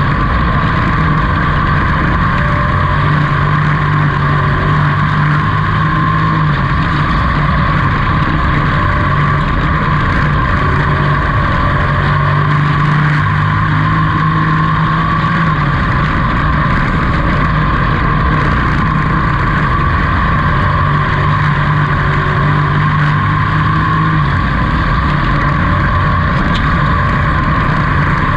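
Pro truck race engine running hard, heard from inside the cab over a constant roar of wind and tyres. Its note dips a little and picks back up about every nine seconds, lap after lap.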